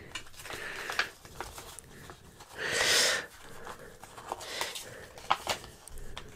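Soft handling of a cassette's fold-out paper insert as it is unfolded, with a few light paper clicks, and one louder breathy exhale about three seconds in.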